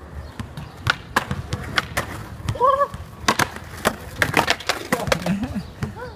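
A skateboard on a concrete court: its wheels roll and its wooden deck gives a string of sharp clacks against the ground and a ledge as a trick is tried. The run ends with the skater falling. A basketball bounces now and then.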